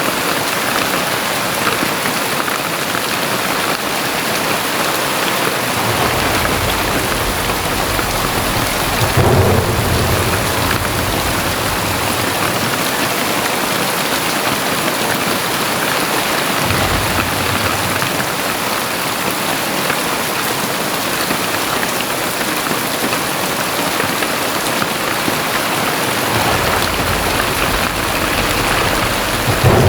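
Very heavy rain pouring steadily on surfaces, with deep low rumbles rising under it three times, the strongest about nine seconds in.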